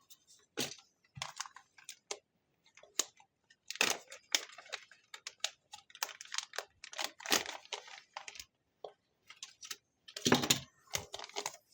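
An electronics kit's packaging being opened by hand: irregular crinkling, rustling and tearing in short bursts.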